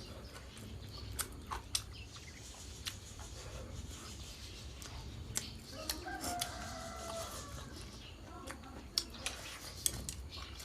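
A rooster crows once, a drawn-out call of about a second and a half some six seconds in, among scattered sharp clicks of chopsticks and tableware during a meal.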